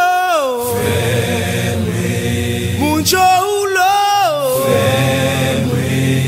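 Chanted a cappella song: a lead voice sings two long drawn-out calls, each held and then sliding down in pitch, over a low steady hum of backing voices.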